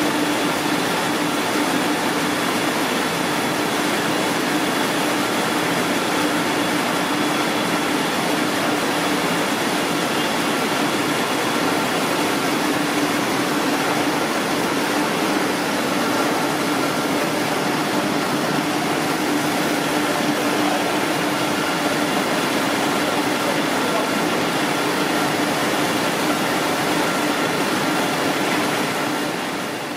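Atlas TS350 turret slitter rewinder running: steady machine noise with a low hum and a fainter high whine, fading out at the end.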